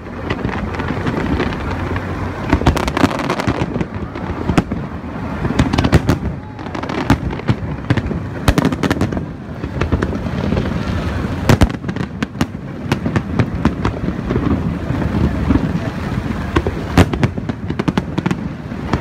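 Aerial fireworks going off without a break: many overlapping bangs and crackles from bursting shells over a continuous low rumble.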